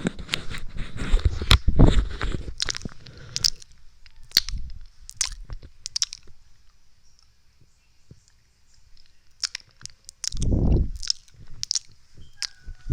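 Close-miked wet ASMR mouth sounds: sharp tongue clicks and lip pops, with a dense, noisy run of them at the start, a near-quiet pause midway, and a short low burst about ten seconds in.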